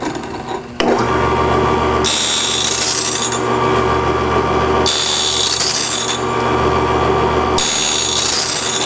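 Cook's Cat Claw automatic bandsaw blade sharpener switched on about a second in, then running steadily with a low hum. A hiss of the grinding wheel on the blade's steel teeth lasts about a second and comes back roughly every two and a half to three seconds as the cam feeds the blade.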